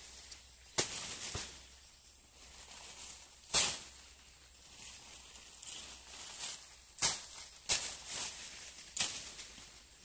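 About five sharp chopping strikes into banana plants, each followed by a rustle of dry banana leaves, as the storm-damaged plants are cut and cleared.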